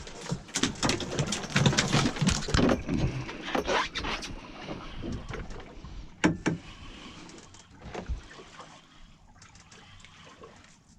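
Knocking and clattering of gear on a small fishing boat for the first few seconds, then a fading wash of wind and water with one sharp knock about six seconds in.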